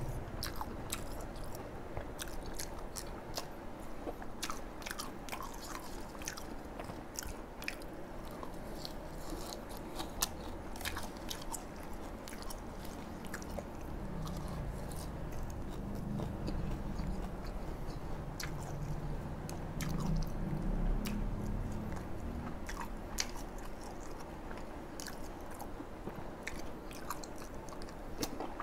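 Close-miked chewing and biting of bún đậu mắm tôm (fried tofu, rice vermicelli and fresh herbs dipped in fermented shrimp paste), with frequent wet mouth clicks. The tofu has gone soft rather than crisp. A low hum sounds through the middle stretch.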